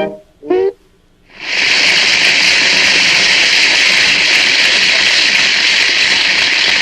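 A short note, then a moment of quiet, then a loud steady hiss of noise starting about a second and a half in.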